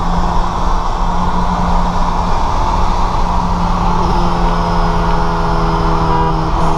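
Steady engine drone and tyre roar at highway speed inside a car's cabin, the 2008 BMW 335i cruising. About four seconds in, a second, higher engine note joins and holds.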